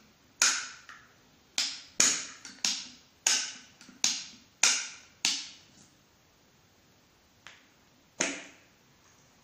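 Trigger of a hand-held cookie press clicking with each squeeze as it pushes out pastry cream: about eight sharp clicks at roughly half-second to one-second intervals, a pause, then two more near the end.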